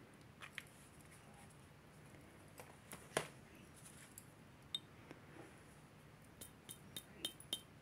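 Light handling clicks and taps on a black jewelry acid-testing stone and a plastic dropper bottle, with one louder tap about three seconds in and a quick run of five or six small sharp clicks near the end.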